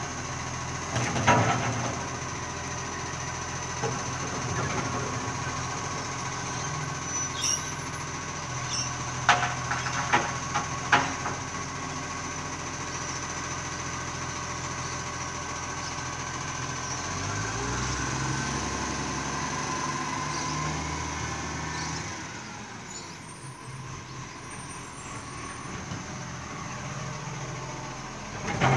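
Recycling garbage truck's diesel engine running steadily, with sharp metallic clanks of a wheelie bin being lifted and emptied about a second in and again around nine to eleven seconds in. About seventeen seconds in the engine revs up, then the sound drops and grows fainter as the truck pulls away; faint bird chirps over the top.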